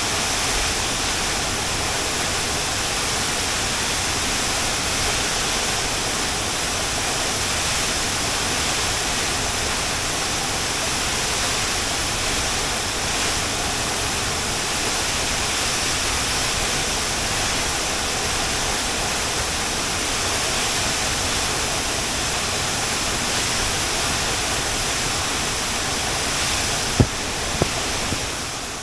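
Waterfall pouring steadily: a dense, even rush of falling water. Two sharp knocks come shortly before the end, and then the sound fades out.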